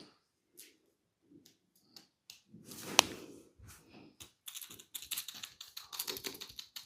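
Close-miked hands-on massage sounds: soft strokes and scattered clicks, one sharp click about three seconds in, then a fast run of taps near the end.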